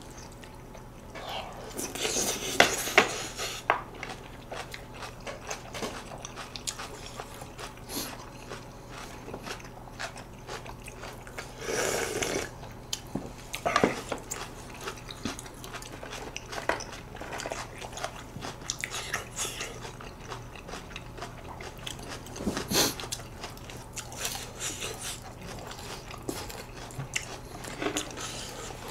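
Close-miked chewing and biting of food, with irregular wet clicks and smacks, and a few louder bursts about 3, 12 and 23 seconds in.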